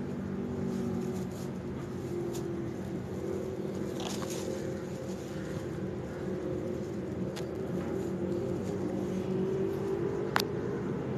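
Steady low mechanical hum with a few faint clicks, one sharper click near the end.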